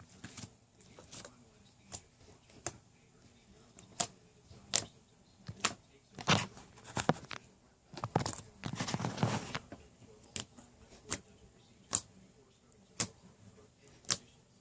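Slime being squeezed and poked, giving a string of sharp pops and clicks as air pockets burst, with a longer squelching stretch a little past the middle.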